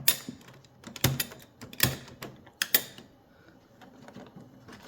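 Handling of hard plastic headlight parts and small hand tools: about five sharp clicks and knocks in the first three seconds, then fainter small clicks.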